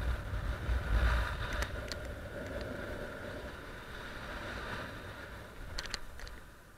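Wind rushing over the camera microphone of a paraglider in flight, buffeting hardest in the first second and a half and then steadier. A few sharp clicks about two seconds in, and a short cluster of them near the end.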